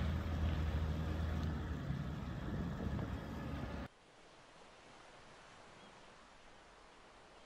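A boat engine running steadily under wind and water noise. About four seconds in it cuts off abruptly to a faint, steady hiss.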